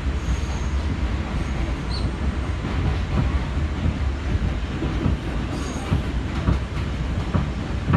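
R179 subway car running on the rails, heard from aboard: a steady low rumble of the wheels, with a few sharp clicks over rail joints and brief faint high wheel squeals near the start and about five and a half seconds in.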